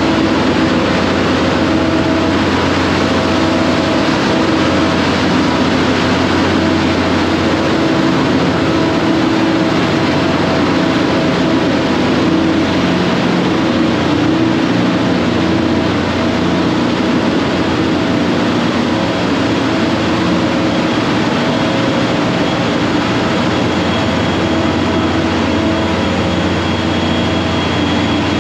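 Ship's engine room machinery running: a loud, steady drone with several constant hums. A faint high whine joins in after about twenty seconds.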